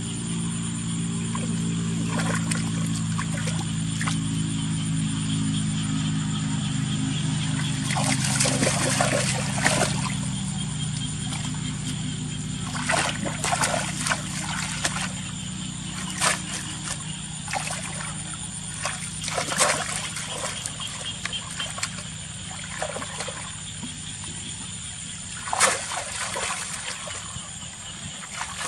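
Water splashing and dribbling in short bursts, several times, over a low steady hum that fades away about halfway through.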